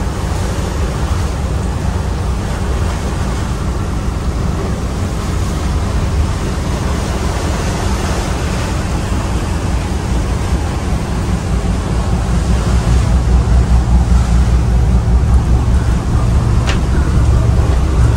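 Steady rush of wind and sea aboard a ferry under way on the open sea, over a low drone. The low rumble grows louder after about twelve seconds.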